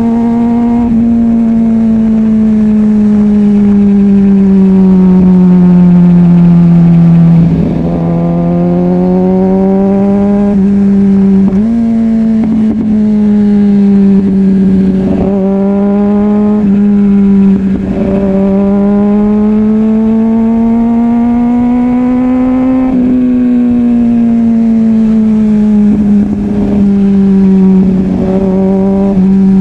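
Kawasaki ZX-6R 636 (2005) inline-four engine under way, its pitch slowly rising and falling with road speed and throttle, broken several times by brief dips and jumps in pitch at gear changes.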